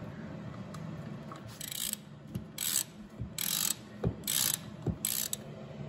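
Hand ratchet with a 14 mm socket backing out a bolt, its pawl clicking in about five short bursts on the return strokes, roughly one burst every second.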